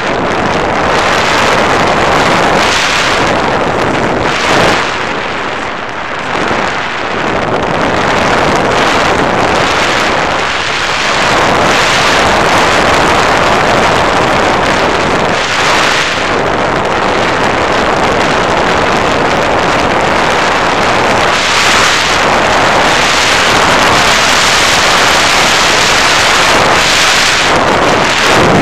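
Continuous loud wind rush over the microphone of an action camera on a flying FPV model plane, swelling and easing several times as the airflow changes.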